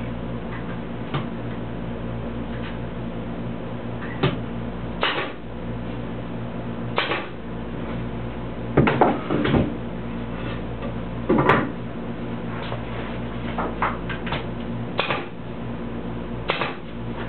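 Pneumatic nail gun firing single shots every few seconds, driving nails through wooden ribs, with knocks of wood pieces being handled between shots, over a steady hum.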